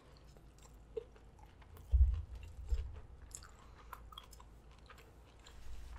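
Close-miked chewing of a mouthful of Hot Cheeto-crusted food, with small wet mouth clicks, and two low thumps about two seconds in.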